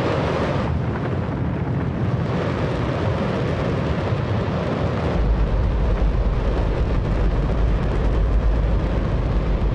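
Space Shuttle main engine firing on a test stand, a continuous, very loud rush of noise. Its low rumble grows stronger from about five seconds in.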